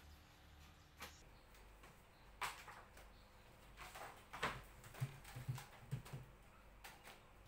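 Quiet handling noises of a straightedge and a roll of plastic sheet being set down and shifted on a plywood tabletop: a few light knocks and scrapes, then a short run of soft thumps about five seconds in.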